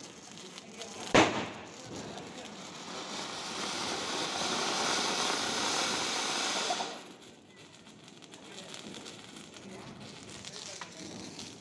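A single sharp firecracker bang about a second in, then a flower pot (anar) fountain firework hissing steadily as it sprays sparks for about four seconds, cutting off suddenly.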